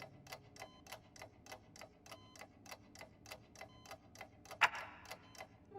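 A clock ticking steadily, about three ticks a second. A single louder, sharper sound comes about three-quarters of the way through.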